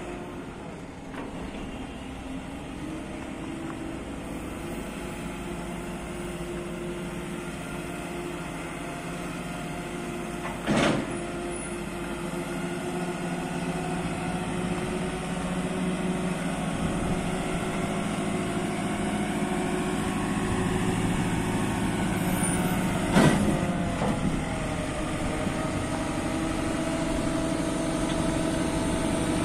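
JCB 540-170 telehandler's diesel engine running under hydraulic load as the boom comes down and retracts. The engine note rises slowly, with a sharp knock about eleven seconds in and another about 23 seconds in, followed by a brief dip in pitch.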